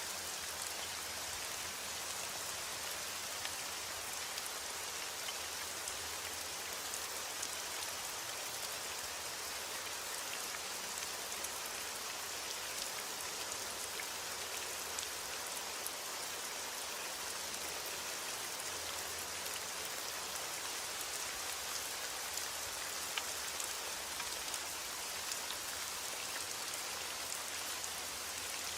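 Steady heavy rain: an even hiss with scattered sharp ticks of individual drops.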